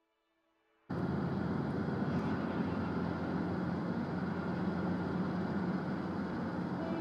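Steady engine and road noise of a moving bus, heard from inside the cabin, cutting in abruptly about a second in.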